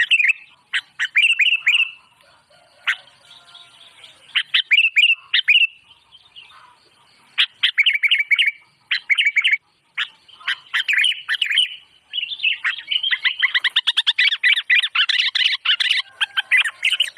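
A songbird singing in short bursts of quick, high chirps with pauses between them, then from about twelve seconds in a long, fast, unbroken run of chirps.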